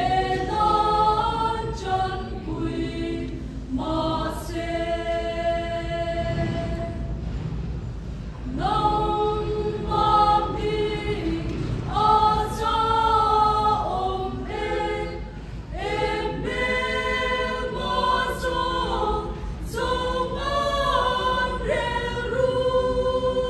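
Mixed choir of men and women singing a hymn unaccompanied, in Mizo, in phrases with short breaks between them.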